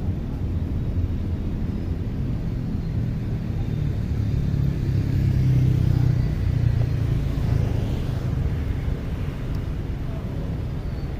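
Low rumble of city street traffic, swelling as a vehicle passes about five to seven seconds in.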